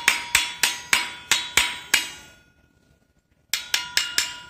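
Red-handled pliers tapping on a motorcycle drum-brake backing plate and its newly fitted brake shoes. The taps are sharp and ringing, about seven of them at roughly three a second, then a pause of over a second and four quicker taps.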